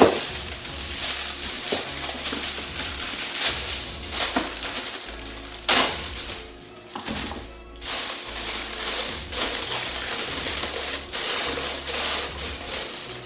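Alcan plastic cling wrap pulled off its roll, crinkling and rustling, torn off against the box's cutting edge with a sharp rip near the middle, then stretched and smoothed over a stainless steel mixing bowl. Background music plays underneath.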